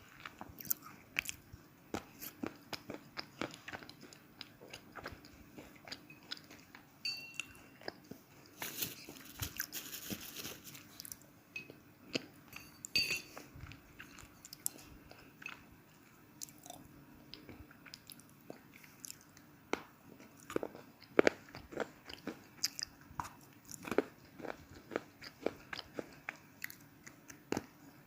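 Chandatara slate pencils being bitten and chewed: a run of sharp, dry crunches, a few each second, with a longer gritty grinding crunch partway through.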